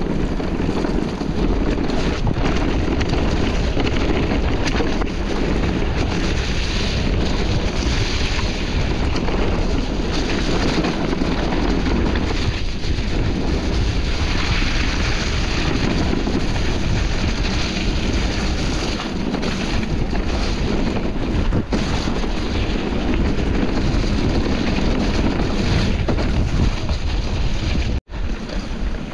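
Wind buffeting the microphone of a camera on a moving mountain bike: a loud, steady, deep rush, with the ride noise underneath. It drops out briefly near the end.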